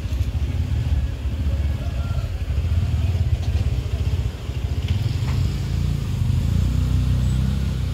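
Pick-up truck engine running as the truck drives along, a steady low rumble heard from the open load bed.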